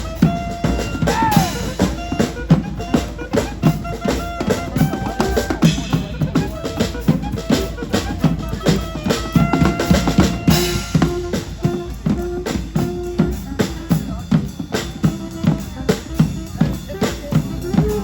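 Live street band playing an instrumental: a drum kit with bass drum and snare keeps a steady, busy beat under held horn notes that step from pitch to pitch.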